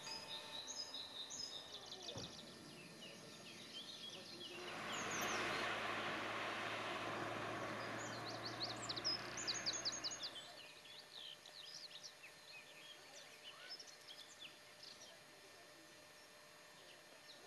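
Small birds singing and chirping throughout. A rushing noise with a low steady hum swells in about four seconds in and stops abruptly about ten seconds in.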